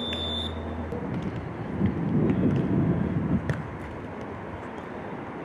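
Beach volleyball rally: a few sharp hits of the ball. A crowd cheers loudly for a couple of seconds in the middle, the loudest sound, with another ball hit as it dies down.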